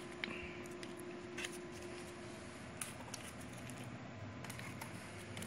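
Faint rustling with a few light clicks as small camera accessories and their packaging are handled.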